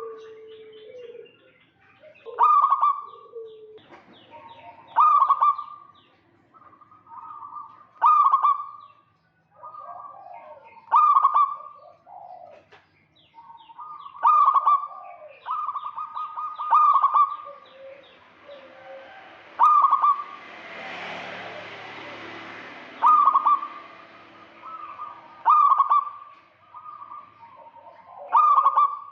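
Zebra doves cooing in repeated phrases of quick, stuttering notes, one phrase every two to three seconds, with softer lower notes between them. A rush of noise swells and fades about twenty seconds in.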